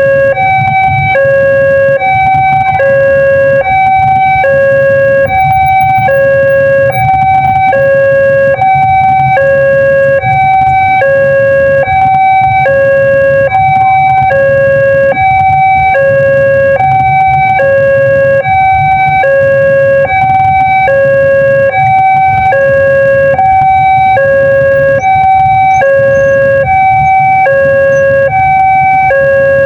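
Electronic railway level-crossing warning siren of the Daop 2 Bandung type, sounding loud and continuously and alternating between a lower and a higher tone in an even repeating cycle. A steady low rumble runs underneath.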